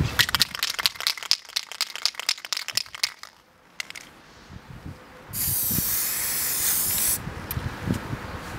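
Aerosol spray-paint can: a rapid rattle of clicks for about three seconds as the can is shaken, then after a short pause one steady hiss of paint spraying for about two seconds.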